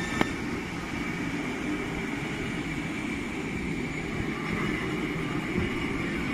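New MBTA Orange Line electric subway cars rolling past on the rails: a steady rumble of wheels on track with a thin, steady high tone. There is one sharp click about a quarter-second in.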